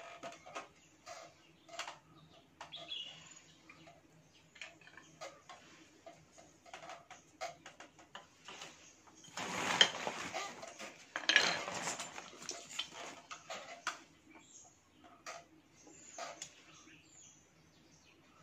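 Plastic impeller and diffuser stages of a submersible borewell pump clicking and clattering as they are handled and fitted onto the pump shaft, with a busier, louder stretch of clatter about halfway through.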